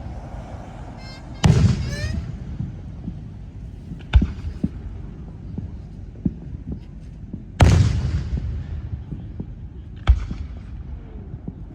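Fireworks going off: four separate booms a few seconds apart over a low background rumble. The biggest, about two-thirds of the way through, rolls on for a couple of seconds.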